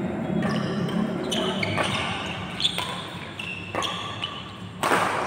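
Badminton rally: rackets striking the shuttlecock several times, roughly once a second, the sharpest hit just before the end.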